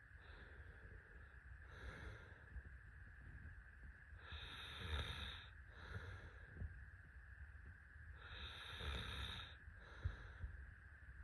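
A sleeping person snoring faintly: two long, noisy snoring breaths about four seconds apart, each followed by a short, weaker breath, with softer breaths early on.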